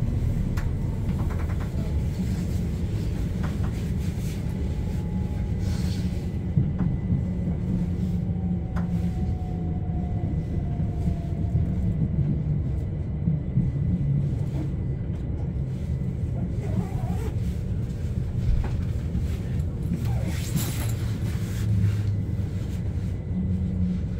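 Steady low rumble of a moving electric passenger train heard from inside the carriage, with a faint whine that slides slowly down in pitch through the middle as the train slows on the approach to a station. There are a few light knocks and clicks.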